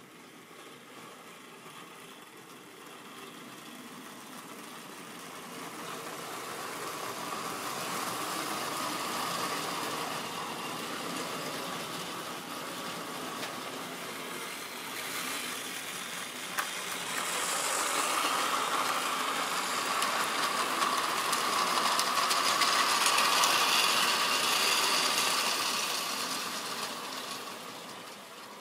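Tri-ang model train running on its steel track, the motor whirring and the wheels rattling along the rails. It grows louder to a first peak about a third of the way in, eases off, then comes louder still about three-quarters through before fading, with one sharp click in the middle.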